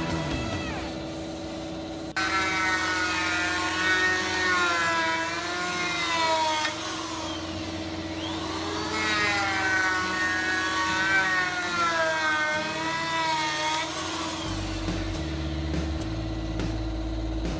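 An electric power saw cutting wood in two long passes, its motor pitch sagging under load and recovering. Background music with a steady bass line plays underneath.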